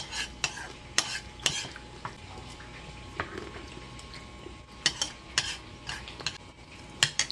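Metal spoon scraping and clinking against a bowl of thick chocolate rice porridge (champorado) while eating, in a few short groups of sharp clicks.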